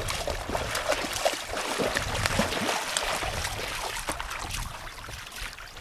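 Water splashing and sloshing as golden retrievers wade through shallow lake water, an uneven run of small splashes with no break.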